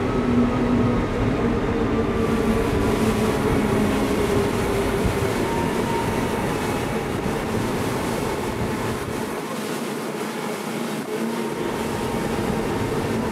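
Outboard engines of a high-performance powerboat running near full throttle at about 6700 rpm, a steady engine hum under loud wind and water rush. Partway through, the engine tone gives way to mostly rushing noise, and the low rumble drops out briefly near the end.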